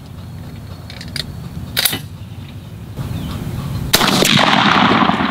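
Remington Versamax shotgun fired once with a Browning TSS 7-and-9 shot turkey load, about four seconds in: a sharp crack whose report carries on for over a second. A few small clicks come before the shot.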